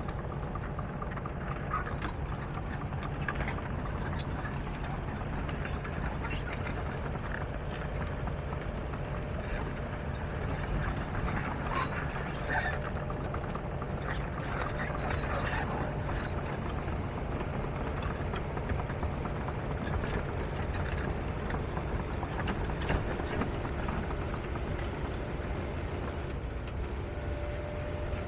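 John Deere 135D excavator's diesel engine running steadily, with scattered light metallic clicks and clanks over the hum.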